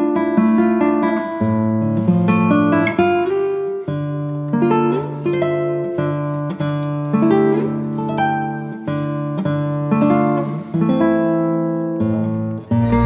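Background music: a melody of plucked string notes, each ringing and dying away, giving way near the end to a fuller passage with a deep bass.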